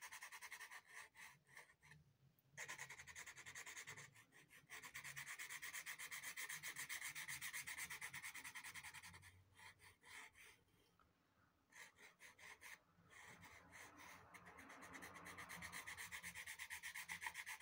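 Faint scratching of a white pastel pencil on Clairefontaine Pastelmat, a card with a fine sandpaper-like tooth, as white is laid in with quick back-and-forth strokes. The strokes come in runs with brief pauses, the longest about ten to twelve seconds in.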